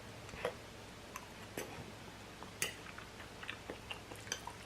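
A person chewing ramen noodles: soft, scattered mouth clicks, the sharpest a little past halfway.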